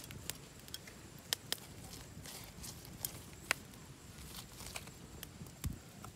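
Scattered light clicks and crackles from hands handling fresh leaves, herb sprigs and bamboo skewers, with a dull thump near the end.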